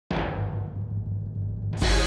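Music opening with a single deep drum hit that fades out over a low sustained tone, then fuller music swelling in suddenly near the end.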